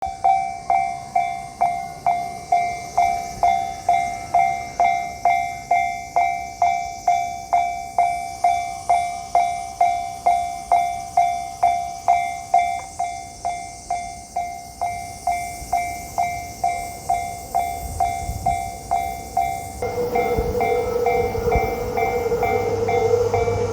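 Japanese railway level-crossing alarm bell ringing in a steady electronic ding-ding at about two strikes a second. From about 20 s a train arrives at the crossing, adding a low rumble and a steady whine under the bell.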